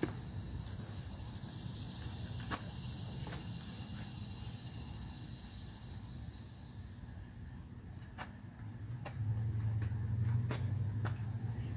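Outdoor background: a steady high insect-like buzz that fades out about halfway through, a low hum that grows louder in the last few seconds, and a few scattered soft clicks.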